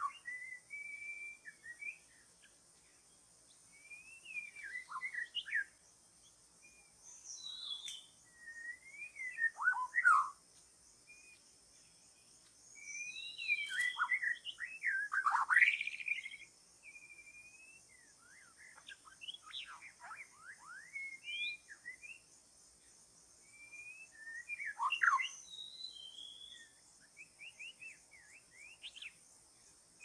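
White-rumped shama (murai batu) singing: varied whistled phrases that swoop up and down, in bursts every few seconds, over a steady high insect drone.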